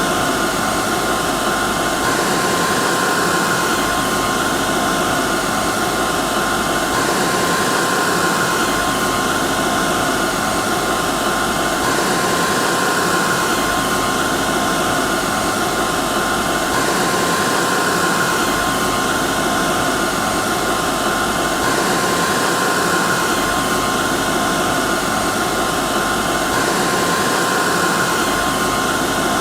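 Hair dryer running steadily: a loud, even rushing hiss of air with a steady motor whine over it, repeating with a slight change about every five seconds, like a looped recording.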